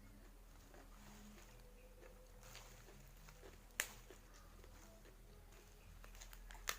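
Quiet eating at a meal: faint chewing and handling sounds, broken by two sharp clicks about three seconds apart.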